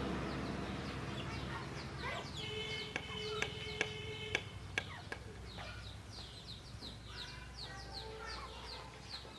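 Chickens clucking, with chicks peeping in a rapid run of short falling chirps. A few sharp taps, like a knife on a wooden cutting board, come in the middle.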